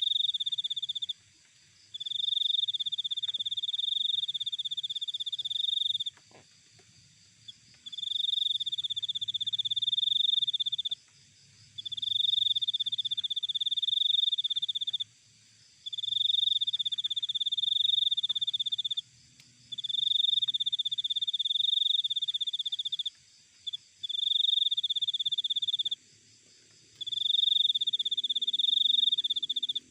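A cricket chirping in long, high trills of about three seconds each, repeated roughly eight times with short pauses between them, over a fainter chorus of other insects.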